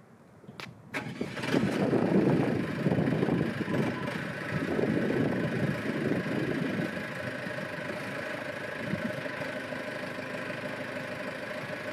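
Mini backhoe loader engine starting: a few clicks, then it catches about a second in, runs loud and rough for several seconds, and settles into a steady idle.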